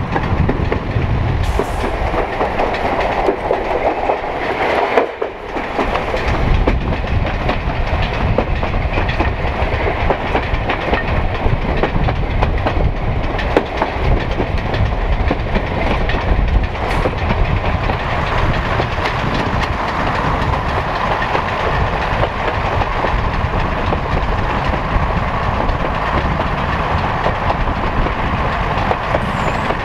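Diesel railcar, a Derby Class 108 unit, running along the line and heard from a carriage window: a steady rumble with the wheels clicking over the rail joints now and then, briefly easing about five seconds in.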